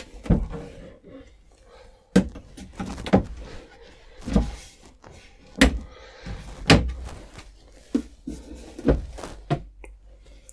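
Caravan washroom cabinet doors under the basin being opened and pushed shut: a string of about nine sharp knocks and clicks, roughly one a second.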